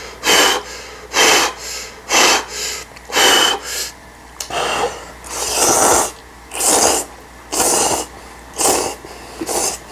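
A person slurping jjapaguri noodles, a string of short noisy slurps about one a second, with one longer drawn-out slurp about halfway through.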